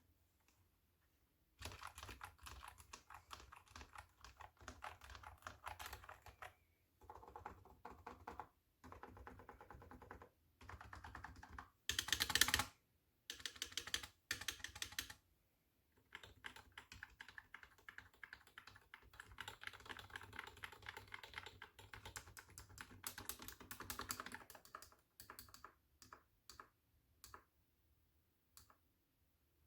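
Typing on a cat-themed computer keyboard: fast runs of key clicks broken by short pauses, with a brief louder burst of keystrokes about twelve seconds in. Only a few scattered clicks come near the end.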